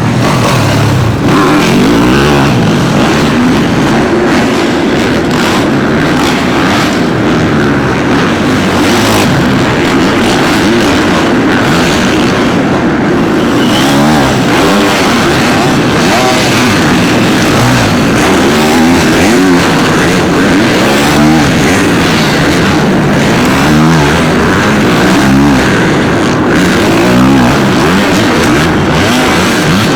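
Several supercross dirt bike engines revving on the track, their pitch rising and falling again and again as the throttles open and close, the bikes overlapping without a break.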